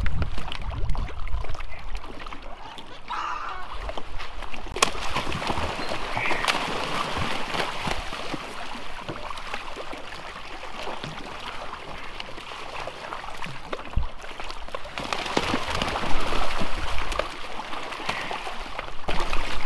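A crowd of brown pelicans splashing and flapping in the water against a boat's hull as they scramble over bait, with a few sharp knocks.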